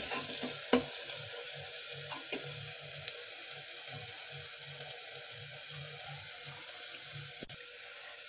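Chopped onions sizzling steadily in hot oil in an aluminium pressure cooker while they brown, with a few light clicks of the spoon against the pot.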